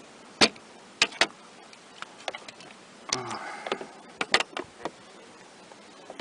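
A series of sharp clicks and knocks from hard parts being handled in a car, irregularly spaced, with a short rustle about three seconds in.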